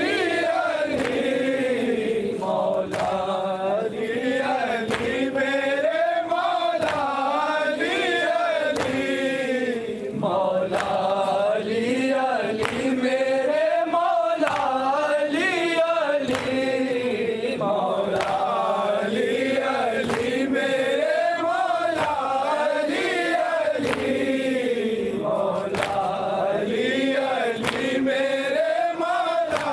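Men's voices chanting a noha, a Shia mourning lament, in chorus. The melody rises and falls in long phrases over a steady run of sharp beats.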